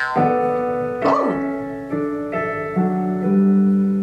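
Piano playing slow, sustained chords that change about every half second to a second: the intro of a pop song.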